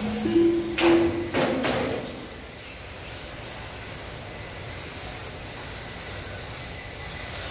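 Electronic beeps at the start, two loud short rushes of noise about a second in, then the high whine of 1/10 electric touring cars with Turnigy 17.5 brushless motors, rising in pitch again and again as the cars accelerate around the track.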